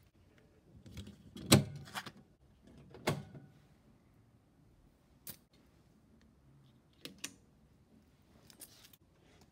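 Clunks and clicks of electrical switches as a metal lathe's power is switched on: a heavy clunk about one and a half seconds in, another about three seconds in, then a few lighter clicks.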